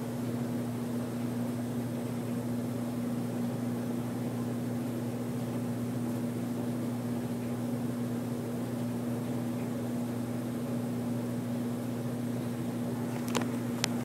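Indoor HVAC air handler's blower running steadily in cooling mode: a constant rush of air with a low electrical hum. Two sharp clicks near the end.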